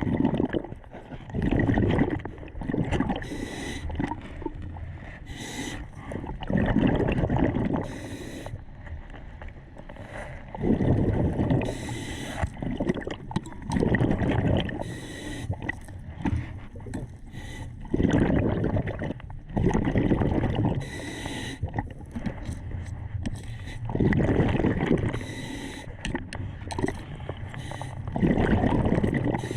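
A diver's breathing in the water: a loud, noisy breath every two to four seconds, with water gurgling and sloshing between the breaths.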